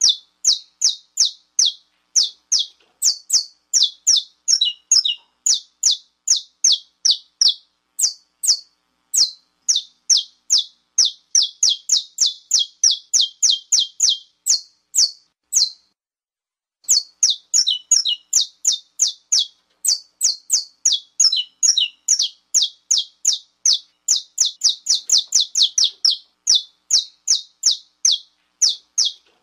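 Saffron finch (canário-da-terra) giving its 'estalo' call, the call used to rouse males. It is a fast run of sharp, high chip notes, several a second, each dropping slightly in pitch, with a pause of about a second just past halfway.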